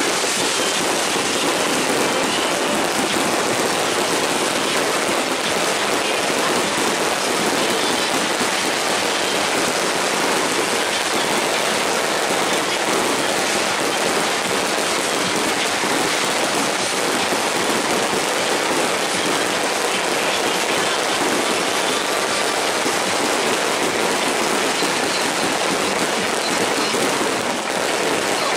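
Fireworks and firecrackers going off in a dense, unbroken crackle, a steady din with no single bang standing out.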